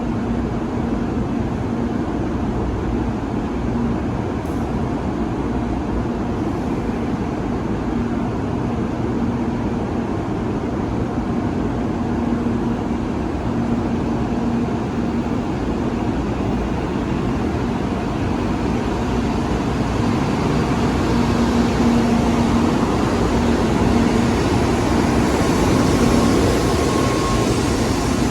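Steady rumble and hum of railway equipment at a station platform, with a hum that comes and goes, growing louder and hissier in the last several seconds.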